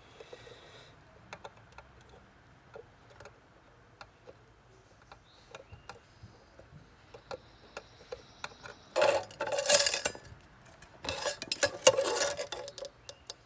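Light clicks and taps of hand tools at a soldering bench, scattered and irregular. Two louder rasping bursts, each about a second and a half long, come about nine and eleven seconds in.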